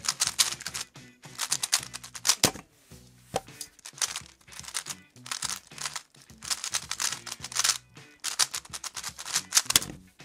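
Rapid clacking of a Valk 3 Power 3x3 speedcube being turned fast during a speedsolve, in quick runs of turns with short pauses between them, over background music with a low bass line. It ends with a sharper knock as the solved cube is set down.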